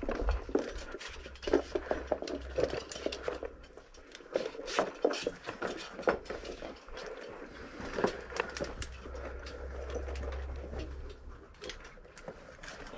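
Metal climbing gear, carabiners and rope hardware, clinking and knocking, with scuffs and scrapes against rock, while someone climbs a fixed rope.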